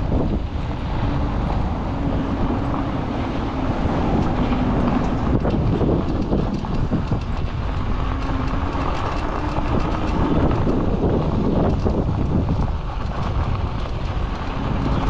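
Bicycle rolling over a rough gravel and dirt path: a loud, steady rumble and rattle of tyres and frame. A faint hum comes and goes a few times.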